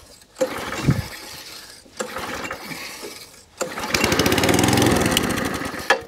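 Suffolk Punch cylinder mower's Tecumseh petrol engine being pull-started on choke: the recoil starter turns it over twice, then on the third pull it fires and runs evenly for about two seconds before dropping away near the end.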